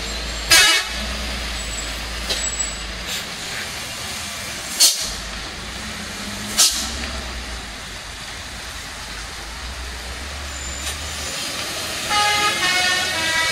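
Heavy diesel tanker trucks grinding slowly around a hairpin in low gear, a steady low engine rumble, broken by three short sharp air-brake hisses about half a second, five and six and a half seconds in. A horn toots near the end.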